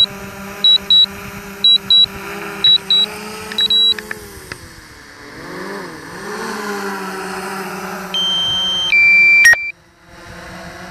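DJI Mavic Pro Platinum drone's propellers humming steadily, the pitch dipping and rising about halfway through as it descends on a critically low battery. Paired electronic warning beeps repeat about once a second in the first few seconds. Near the end a run of loud beep tones at stepped pitches cuts off suddenly.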